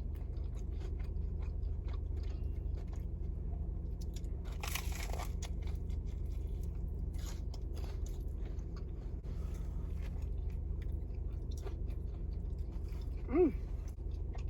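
A crunching bite into a crispy toasted grilled cheese sandwich about five seconds in, then quieter chewing with small clicks, and a short 'mm' near the end.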